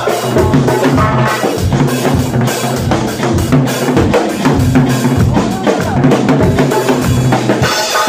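Live band music driven by a drum kit and doira frame drums playing a fast, steady dance rhythm, with regular bass drum beats underneath.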